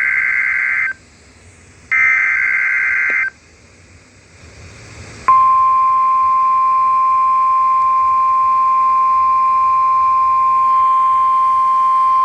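NOAA Weather Radio EAS alert: two buzzy SAME header data bursts about a second long, one ending about a second in and the next at about three seconds, with faint radio hiss between them. About five seconds in, the steady 1050 Hz warning alarm tone starts and holds, signalling that a warning, here a Severe Thunderstorm Warning, is about to be read.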